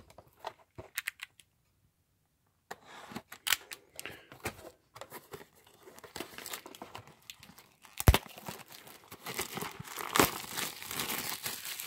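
Plastic shrink wrap being torn and crinkled off a cardboard trading-card blaster box. A few light handling clicks come first, the crinkling starts about three seconds in, and there is a sharp crack about eight seconds in and another strong one around ten seconds.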